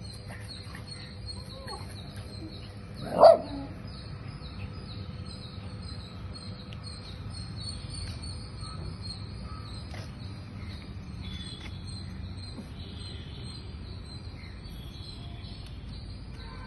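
A dog gives one short, loud bark about three seconds in, during rough play between a beagle and a shih tzu, over steady high chirping in the background.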